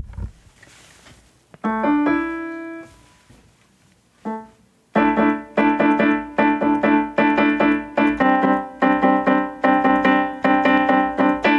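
Piano playing the opening phrase of a string-quartet piece: a held chord, a short pause and a single brief note, then quick repeated chords at about three a second.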